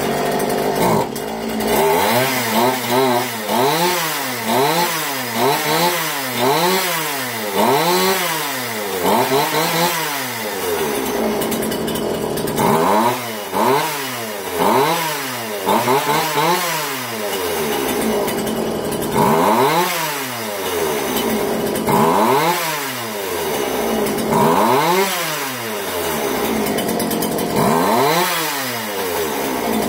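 Homelite chainsaw's small two-stroke engine, started just before, idling and revved up and down over and over by the throttle, with short spells of steady idle between the runs of revs. It is being test-run after its low-speed mixture screw was turned out half a turn, to see whether it idles and picks up cleanly.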